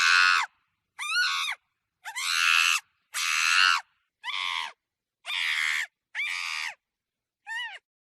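Monkey screeching in about eight short, harsh calls, each around half a second long and some rising then falling in pitch, separated by brief silent gaps.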